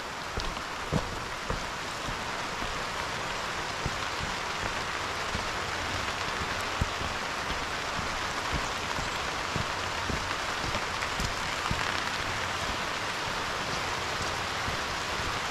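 Steady monsoon rain falling on grass, leaves and crops, an even hiss with a few faint light taps.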